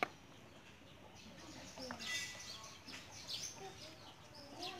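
A single sharp knock of a cleaver blade through soft tofu onto a wooden cutting board at the very start, then faint outdoor ambience with scattered bird chirps.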